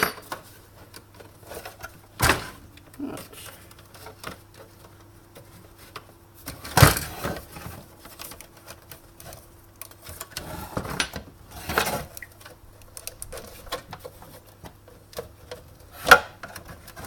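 Irregular knocks, clicks and rattles of an espresso machine's parts and tools being handled during disassembly. The loudest knocks come about seven seconds in and near the end, over a faint steady hum.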